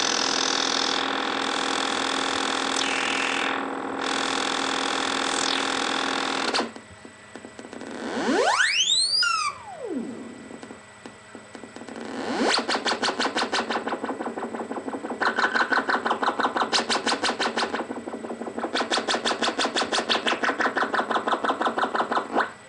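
Doepfer A-100 modular synthesizer being tweaked live. A sustained buzzy, overtone-rich tone holds for the first six or so seconds, then a couple of swooping pitch sweeps rise and fall. A fast pulsing tone follows, repeating several times a second with short breaks, and cuts off suddenly near the end.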